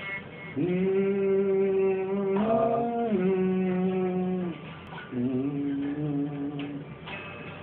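A band's electric guitars and bass playing long held chords. One chord rings for about four seconds, stepping up in pitch and back down midway, then stops. After a short break a second chord rings for about a second and a half.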